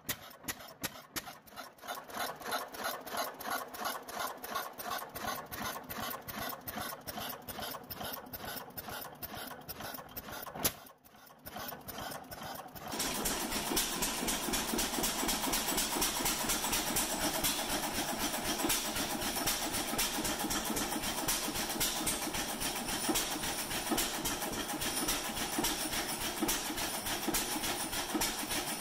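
1922 Fairbanks Morse Model Z single-cylinder stationary gas engine running with a steady, evenly spaced beat. About thirteen seconds in the sound changes abruptly to louder, busier running: the engine after restoration.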